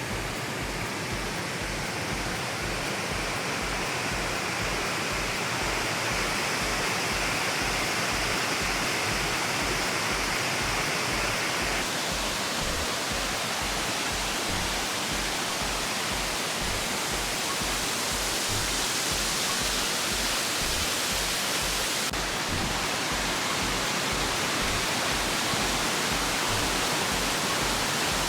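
Waterfall: a steady, dense rush of falling water, its tone shifting slightly twice.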